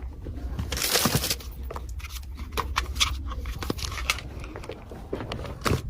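Packaging being handled: a short rustle of crinkling wrap about a second in, then scattered small clicks and taps, over a steady low hum.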